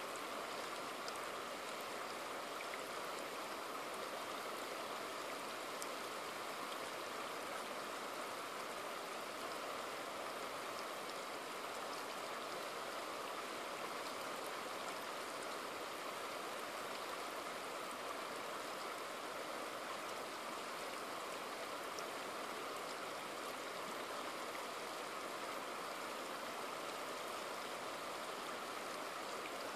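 Shallow river flowing over rocks and cobbles close by: a steady rush of water that does not change.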